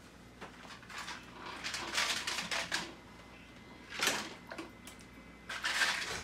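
Ice cubes and glass marbles clattering in a plastic tub of water as a hand stirs and adds ice. The clatter comes in three short spells.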